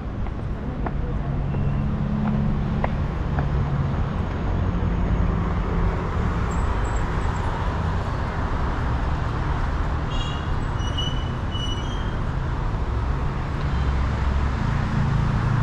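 Steady city street traffic: the hum and tyre noise of cars passing on the road, with a few brief high chirps about ten seconds in.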